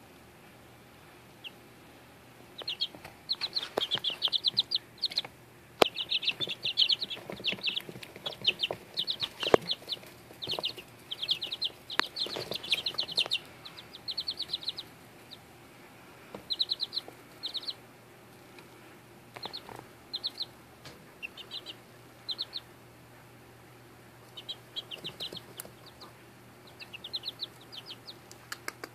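Two-week-old Easter Egger chicks peeping: runs of short, high chirps in quick succession, broken by pauses, with a few light taps among them.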